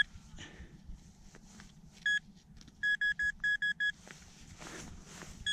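Metal detecting gear sounding on a buried metal target: one short electronic beep about two seconds in, then a quick run of about eight beeps a little later, with more starting near the end.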